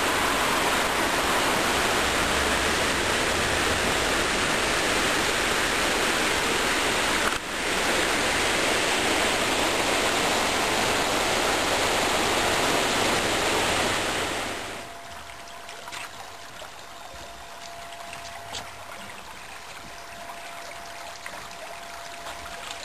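Shallow river running over stones, a steady loud rushing wash. About fifteen seconds in, it gives way to a much quieter, softer water sound with a faint steady hum and a few light ticks.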